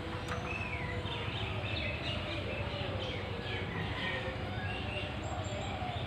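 Birds chirping: a quick run of short, wavering chirps over the first few seconds, over steady background noise.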